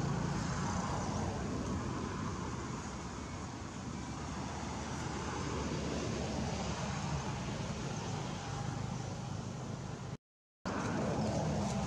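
Steady outdoor rumble and hiss with no distinct animal calls, cut by a sudden half-second dropout to silence about ten seconds in.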